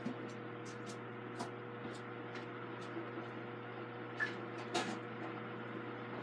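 Quiet workshop background: a steady low hum with a scatter of faint clicks and light knocks, the two most distinct about four and five seconds in.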